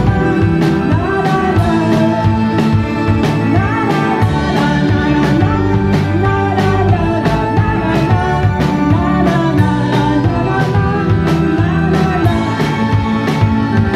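A live indie pop band playing: drum kit keeping a steady beat, electric guitars and keyboard, with a voice singing over it.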